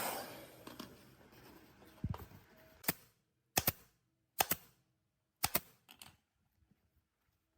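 A hiss fading out at the start, then about six sharp clicks or taps spaced roughly a second apart.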